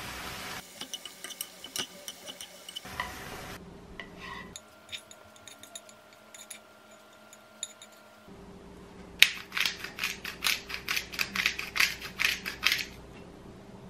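Onions sizzle briefly in a frying pan, then wooden chopsticks click and scrape against the pan as the onions are pushed onto a plate. In the second half a pepper grinder cracks black pepper in a quick run of sharp clicks lasting about four seconds.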